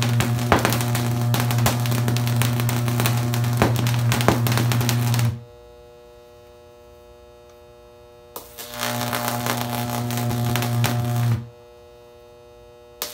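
High-voltage electric arc burning through sodium with a loud low buzzing hum and crackling. It cuts off sharply about five seconds in, leaving a faint hum. After a click it buzzes again from about nine to eleven seconds, then cuts off once more and restarts right at the end.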